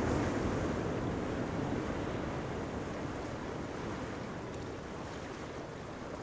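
Seashore ambience: small waves washing onto a pebbly beach, with wind, a steady rushing noise that is loudest at the start and slowly fades.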